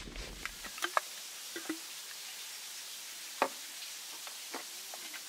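Brief soft rustling of gear being handled, then a handful of separate light clicks and knocks, the loudest about three and a half seconds in.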